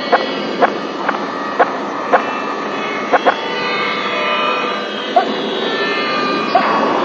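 Hand claps, about two a second at first, then fewer and farther apart, with a quick pair about three seconds in. Under them runs a steady dense drone of many held tones that swells around four seconds in.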